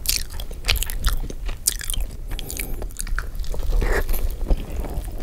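Close-miked biting and chewing of a slice of pizza: wet mouth sounds with many short clicks and crunches from the crust.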